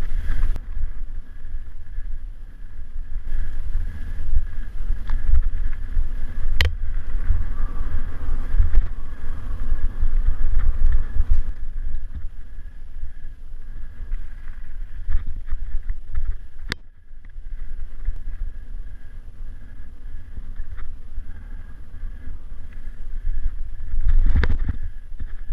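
Mountain bike ridden down a dirt forest singletrack, heard through a bike-mounted action camera: a steady low rumble of wind on the microphone and tyres and frame over the rough ground, with two sharp knocks, about a quarter and two-thirds of the way in.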